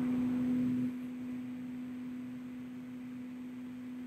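Cooling fan of a ZHIYUN MOLUS G200 LED video light running at its 300 W extreme-mode output: a steady low hum with a soft rush of air. The air rush is louder for about the first second, then settles to a lower, even level.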